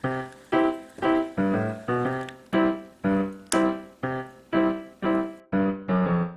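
Background music: a keyboard melody of single struck notes, about two a second, each one fading away before the next.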